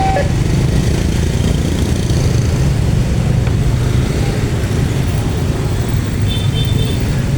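A locomotive horn cuts off at the very start, then a loud, steady low rumble of vehicles at the level crossing carries on.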